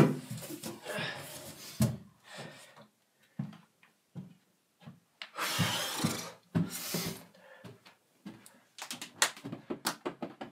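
Handling noise from someone climbing about in a large cardboard box, then moving around: a sharp knock at the start, scattered thumps and footsteps, two longer rustles about halfway through, and a run of small clicks and knocks near the end.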